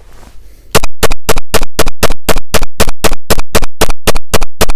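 Glock 17 9mm pistol rapid-firing Polycase RNP Inceptor polymer rounds, emptying the magazine in a fast, even string of about seventeen loud shots, roughly four a second, starting just under a second in. The pistol cycles every round without a hangup.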